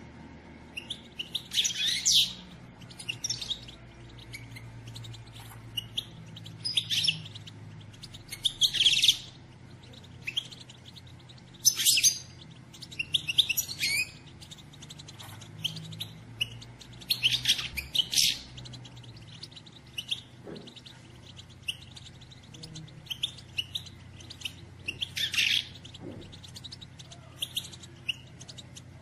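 Female European goldfinch chatter: short bursts of high twittering calls, each about a second long, coming every few seconds, the kind of call played to stir a male goldfinch into song.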